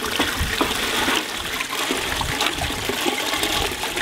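Water running and splashing in a hose-fed wet-sieving tank while soil samples are worked through the mesh by hand.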